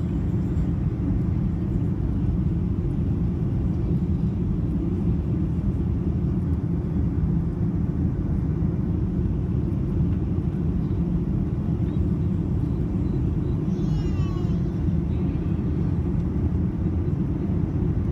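Steady low rumble of a Boeing 737-800 in flight, heard inside the cabin: its CFM56 jet engines and the airflow over the fuselage.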